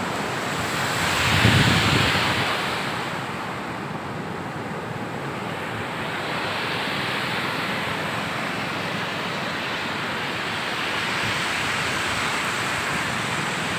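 Ocean surf breaking and washing up the beach, a steady rushing noise, with wind buffeting the microphone. It swells louder for about a second around a second and a half in.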